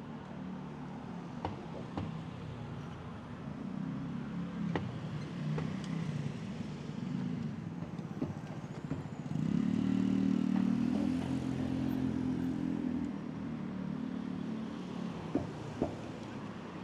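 City street traffic: motor vehicle engines running, with one vehicle louder and close from about nine and a half seconds in for a few seconds. Scattered short clicks and knocks sound over it.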